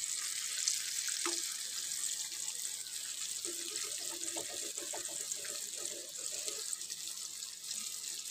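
Cornflour-coated beef tikka pieces deep-frying in hot oil: a steady, high-pitched sizzle with fine crackling.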